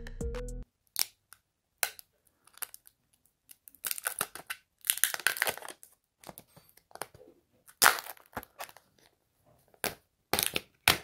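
Protective plastic film on a new smartphone crinkling and tearing in short bursts as it is handled and peeled, with small clicks and taps in between.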